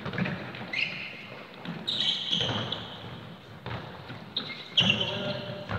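A football thudding off feet and the hard floor of a large sports hall, with several short, high squeaks of trainers on the court surface, the loudest near the end, echoing in the hall.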